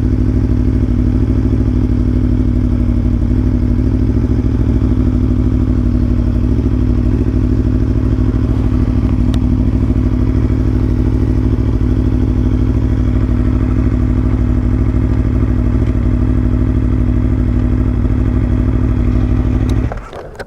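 Aprilia Tuono V4 1100 Factory's 65° V4 engine running steadily at low revs, then switched off near the end.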